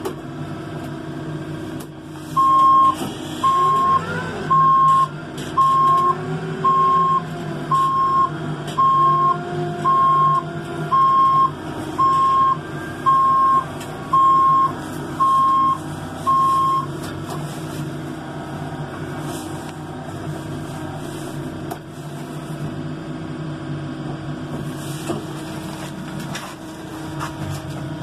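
Case 580ST backhoe loader's reverse alarm beeping about once a second for some fifteen seconds while the machine backs up, over its diesel engine running steadily, heard from inside the cab.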